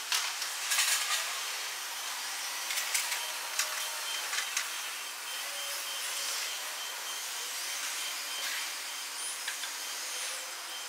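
Outdoor ambience: a steady hiss with scattered clicks and knocks, and a few short high chirps near the end.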